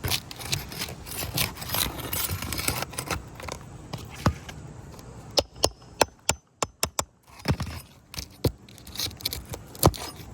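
Asphalt roof shingles being scraped and worked loose by hand: scraping and rustling for the first few seconds, then a run of sharp clicks and knocks, the loudest near the end.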